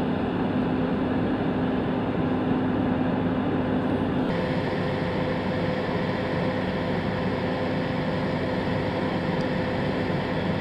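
Steady drone of aircraft engine noise with a held hum. The sound changes abruptly about four seconds in to a brighter drone with a higher hum.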